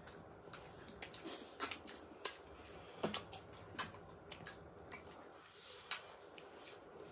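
Close mouth sounds of a person eating: irregular soft clicks and wet smacks of chewing and biting.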